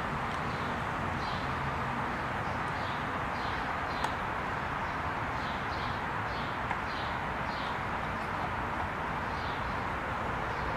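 Steady background noise with faint, short high chirps recurring every half-second to a second, and one light sharp click about four seconds in.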